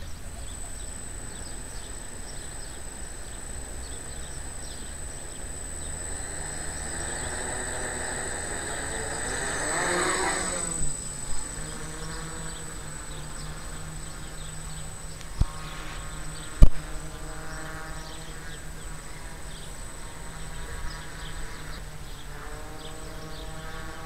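Quadcopter's electric motors and propellers buzzing as it lifts off and climbs into a hover; the buzz swells about ten seconds in, then settles into a steady hum whose pitch wavers. Two sharp clicks a little past the middle, the second the loudest sound.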